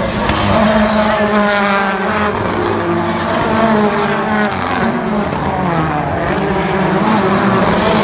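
Turbocharged rallycross Supercars racing past, their engines revving hard, the pitch climbing and dropping again and again through the gears.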